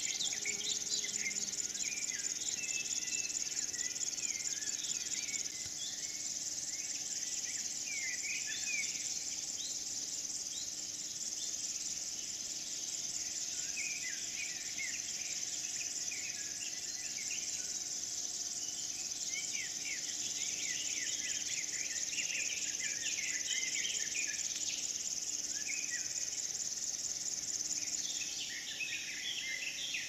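A dense, steady high-pitched chirring of meadow insects such as crickets, with many small birds singing short phrases over it. The insect chirring thins near the end.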